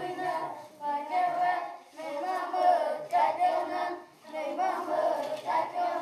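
A group of children singing together, their song in phrases broken by short pauses about two and four seconds in.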